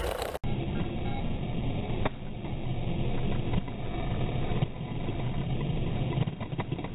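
Slowed-down sound of a road bicycle race sprint: a low, dull rumble of wind and tyres with a few sharp clicks. The sound cuts out for an instant near the start, where the slow motion begins.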